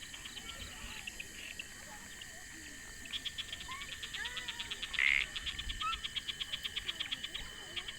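Night chorus of insects, crickets or katydids: steady high-pitched trilling with a fast pulsing call of about seven pulses a second that starts about three seconds in. One brief louder call comes about halfway through.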